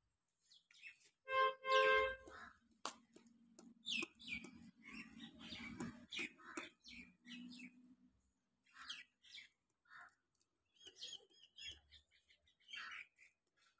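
Small birds chirping again and again, with two short, loud pitched calls about one and a half to two seconds in, and a low steady hum from about three to eight seconds in.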